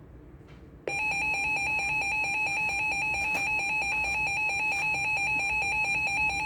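A NOAA Weather Radio alert tone starts abruptly about a second in and holds steady and loud: a piercing electronic tone with a strong pitch just below 1 kHz and a higher shrill partial, like the EAS attention signal. It signals that a warning broadcast is about to begin.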